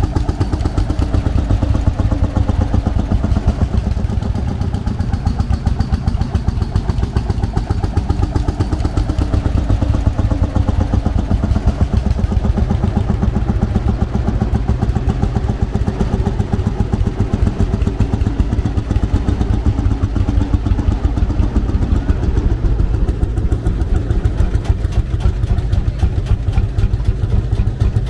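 Vintage tractor engine running steadily, with a rapid, even firing rhythm.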